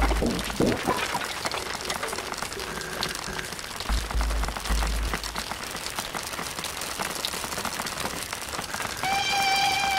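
Fine ink pen scratching on drawing paper, a dense run of tiny crackling strokes, with a few dull low thumps. Music with long held notes comes in about a second before the end.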